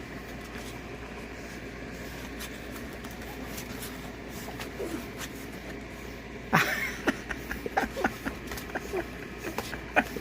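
Newborn puppies nursing on their mother, a faint short squeak among a steady low background, then from about six and a half seconds a run of sharp clicks and knocks, the first one the loudest.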